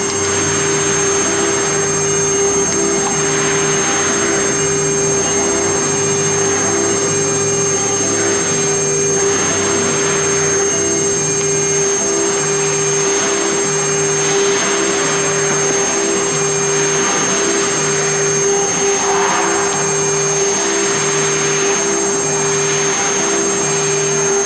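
CNC engraving machine spindle running with a steady whine as the bit cuts lettering into a double-colour plastic board, with swells of cutting noise every second or two. A low tone pulses on and off a little more than once a second underneath.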